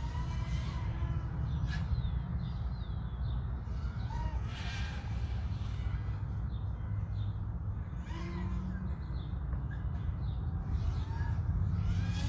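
Birds calling now and then, short rising-and-falling calls with a few higher chirps between them, over a steady low rumble.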